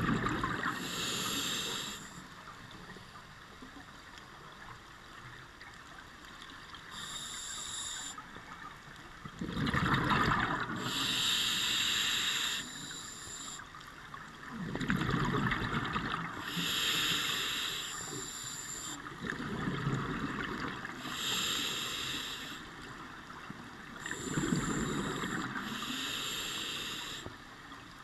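A scuba diver breathing through a regulator underwater: a hiss on each inhalation alternating with a rumbling burst of exhaled bubbles, a breath every few seconds.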